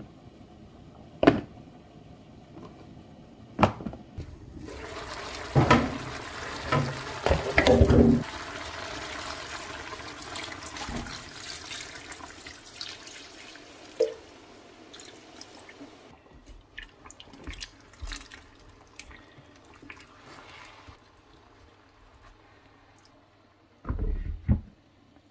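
Kitchen handling sounds: a couple of sharp clicks, then several seconds of rushing, water-like noise with loud knocks, fading to a faint steady hiss. A glass pot lid clunks twice near the end as it is handled.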